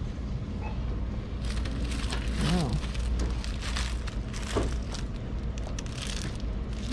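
Shop ambience: a steady low hum, with crinkling and rustling that starts about a second and a half in, and faint distant voices.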